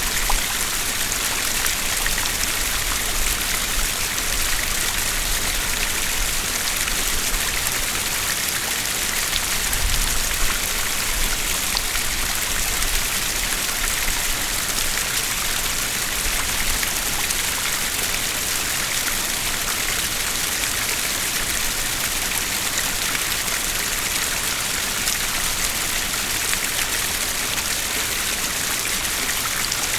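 Two small streams flowing and splashing over rocks, a steady even rush of water with a little difference between left and right.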